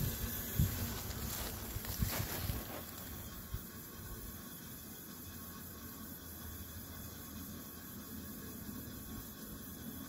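Footsteps and rustling in dry grass, with low rumble of handling or wind on the microphone, for about the first three seconds, then a faint steady outdoor hiss with no machine running.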